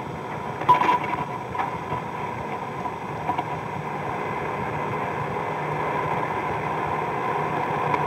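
Weather radio broadcast's background hiss and hum with no one speaking, carrying a thin steady whine near 1 kHz. A few crackles come about a second in, and the noise grows slowly louder.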